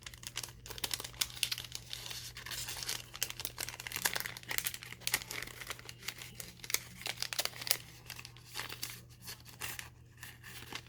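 Paper and sticker sheets being handled and sorted, crinkling and rustling in a string of irregular small crackles.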